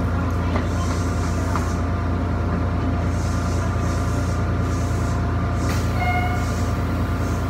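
Inside a diesel railcar standing at a station, the engine idles with a steady low hum and droning tones. A short electronic tone sounds briefly about six seconds in.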